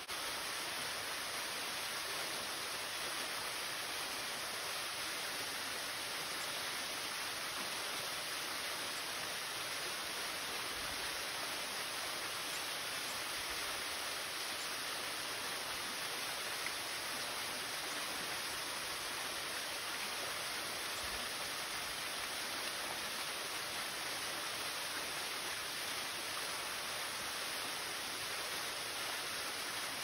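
Small waterfall pouring down a rock face into a plunge pool: a steady, unbroken rush of falling water.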